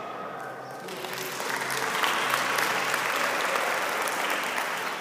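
Crowd applauding, swelling about a second in and easing off near the end.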